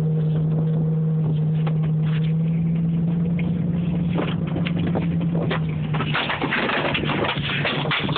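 Dodge Dakota pickup's engine running at a steady pitch. Crackling, rustling noise grows over the last couple of seconds.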